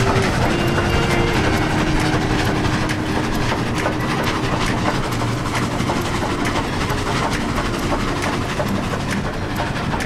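Steam train running along the track: a steady rumble with scattered clicks of the wheels over the rails.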